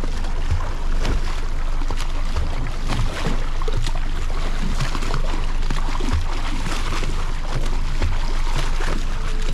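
Escort boat's motor running steadily under a noisy wash of water splashing and sloshing against the hull, with irregular low knocks.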